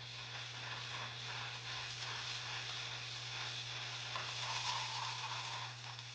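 Seed beads swishing and rattling in a spinning solid-wood bead spinner bowl as the wire needle scoops them up, a steady hiss. A constant low hum runs underneath.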